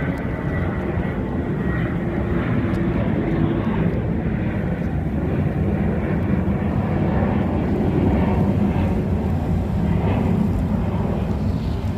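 Airplane passing overhead: a steady low rumble, with a faint engine whine at the start.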